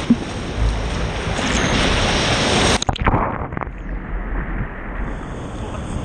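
Ocean surf and wind noise on the microphone, a steady rushing hiss. About three seconds in it breaks off with a few sharp clicks and goes on quieter and duller.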